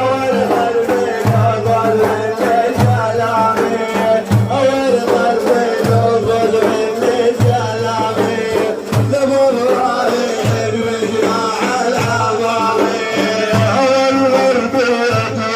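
Middle Eastern devotional music: a wavering melody line over a low drum struck in a steady pattern, about one stroke every second and a half.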